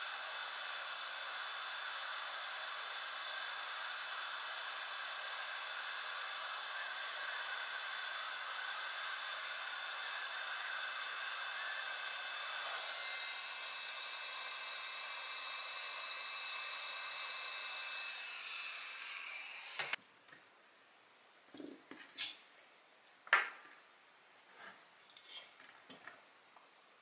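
A small high-speed motor blower running with a steady high whine. It steps up slightly about halfway through, then winds down and stops. A few sharp clicks and light knocks follow.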